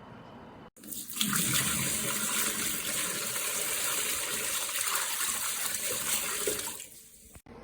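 Water running and splashing steadily for about six seconds, starting abruptly after a cut and fading out near the end.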